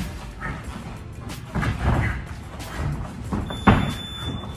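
Shoes stepping, sliding and stamping on a boxing ring's canvas floor during shadowboxing footwork, in irregular thuds with a louder thud a little before the end, over background music.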